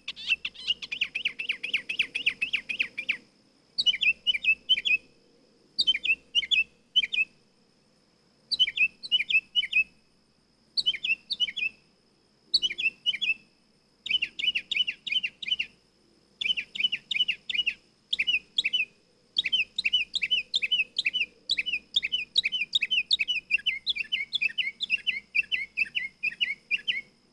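A nightingale singing: bursts of fast, repeated whistled notes in phrases of one to three seconds with short pauses between, the first a long rapid trill and the last phrases running almost without a break.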